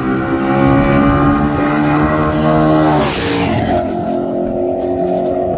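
Two cars racing side by side at full throttle, their engines rising in pitch as they approach. About three seconds in they rush past with a burst of wind noise, and the engine note drops as they pull away.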